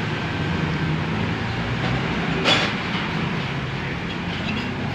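A steady low rumble of background noise, with one sharp knock about two and a half seconds in.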